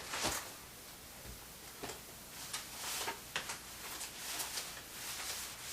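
Faint handling noises of stroller parts being fitted: scattered small clicks and knocks with some rustling.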